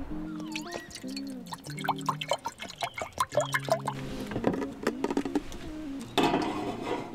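Water poured into a stainless steel saucepan for a couple of seconds, splashing and filling, then a few light clicks as the pot goes onto the grate of a two-burner gas camping stove. A short burst of hiss near the end.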